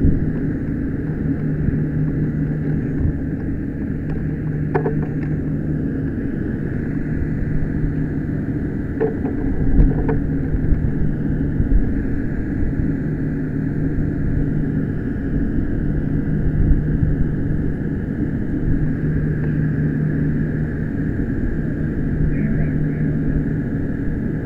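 A steady mechanical drone with a constant low hum. A few short knocks come around five seconds in and again near ten seconds.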